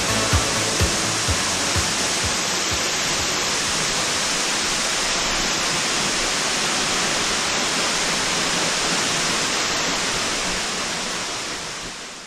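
Steady rush of a waterfall, fading out near the end. A musical beat dies away in the first couple of seconds.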